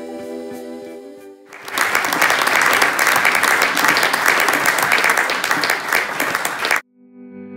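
Background music with held notes fades, then an audience claps steadily for about five seconds. The clapping cuts off abruptly and the music comes back in near the end.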